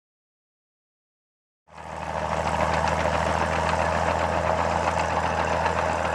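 Silence, then about two seconds in the steady running of a Fiat 1355C crawler's 8.1-litre Fiat-Iveco diesel engine fades in and holds steady, working with a plough.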